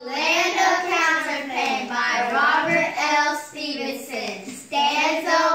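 Children's voices chanting words in a sing-song way, with a short pause a little before the end.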